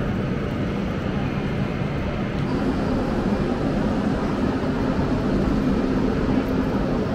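Steady low rumble and hum of a busy railway station hall, with a low droning tone that grows a little stronger a couple of seconds in.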